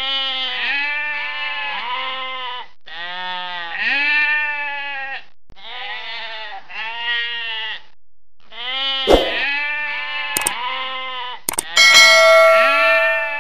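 Several sheep bleating in long, overlapping calls, one after another with short pauses. Near the end come a few sharp clicks and then a bright ringing chime over the bleats.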